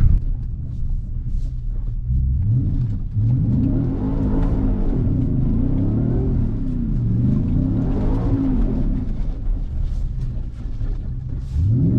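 Ford Raptor R's supercharged 5.2-litre V8 accelerating hard, heard from inside the cab, its engine pitch rising and falling several times as it revs.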